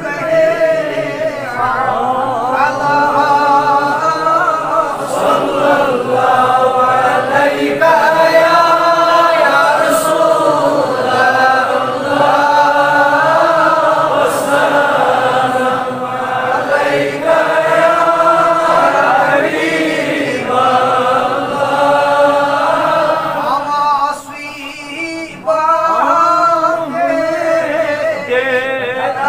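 Male voices chanting Durood, salutations upon the Prophet Muhammad, in unison, in long held melodic lines, with a short pause about three-quarters of the way through.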